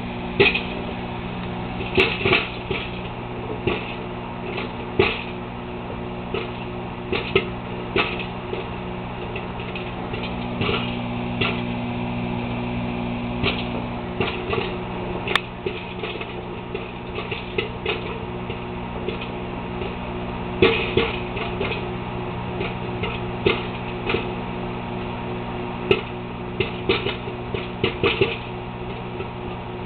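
Popcorn kernels popping in a microwave popcorn bowl with no oil: sharp irregular pops, a few seconds apart and coming in quicker clusters near the end, over the steady hum of the running microwave oven.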